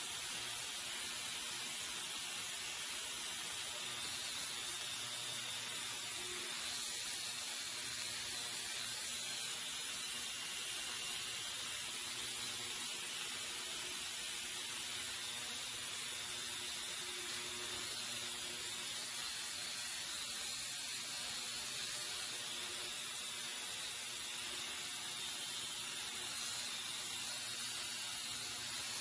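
Design Technology Incorporated ultrasonic cleaner running, cleaning a small-engine carburetor in its heated bath. It makes a steady hiss with a faint low hum under it.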